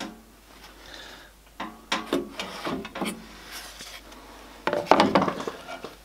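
Plywood jig being lifted, turned over and set back down on the bandsaw's metal table, making a series of wooden knocks and scrapes. The loudest cluster comes about five seconds in.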